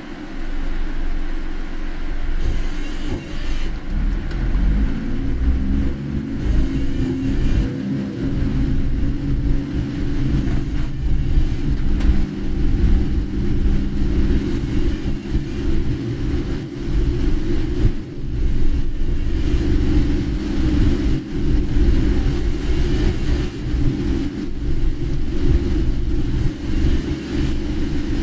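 Car driving in rain, heard from inside the cabin: a steady low rumble of engine and tyres, with the engine rising in pitch as the car speeds up a few seconds in.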